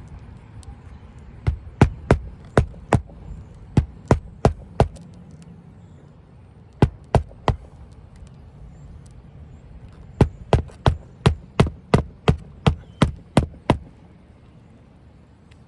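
Hammer driving roofing nails into an asphalt shingle, in three runs of sharp blows at about three a second, with pauses between runs.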